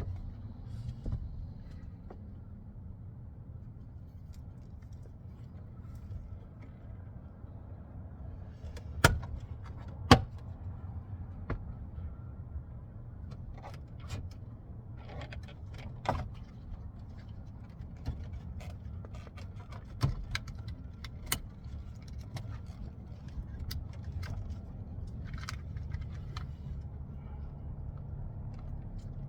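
Scattered sharp clicks and knocks of tools and door-panel hardware being handled on a pickup truck door, the two loudest about nine and ten seconds in, over a steady low hum.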